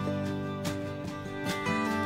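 Instrumental background music with plucked string notes.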